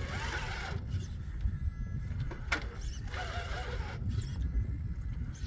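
Axial SCX10 III RC crawler's electric motor and geared drivetrain whining in short bursts of throttle as it claws at a steep, muddy climb, over a steady low rumble, with a sharp click about halfway through.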